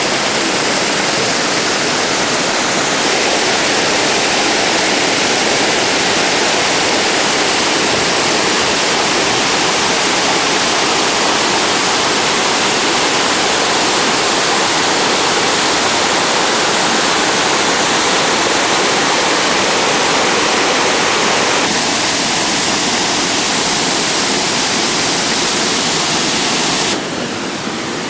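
A waterfall's steady, loud rush of falling water, with no pitched tones or distinct impacts. Its level drops a little near the end.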